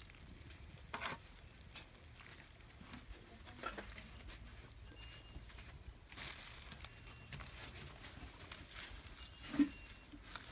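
Scattered light clicks and knocks over a low steady background, the loudest just before the end, with a few faint short high chirps.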